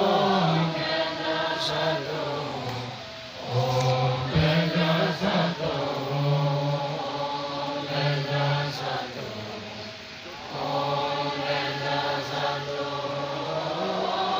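Tibetan Buddhist monks chanting prayers in unison, a group of deep voices holding long low notes in phrases, with short breaks about three and ten seconds in.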